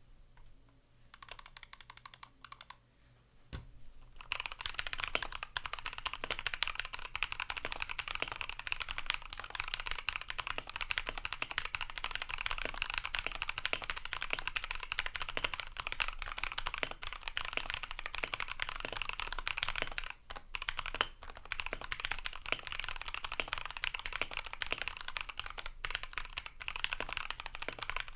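Fast, continuous typing on a Corsair K70 PRO MINI Wireless keyboard with Cherry MX Silver linear switches, hand-lubed with Krytox 205g0: rapid overlapping keystrokes. A few scattered key taps come first, the fast typing starts about four seconds in, and there is a brief pause about twenty seconds in.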